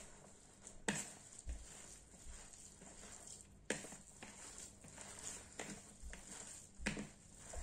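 Hands squeezing and kneading a raw meatball mixture of minced meat, eggs and breadcrumbs in a bowl: soft, irregular squelching, with a few louder squishes.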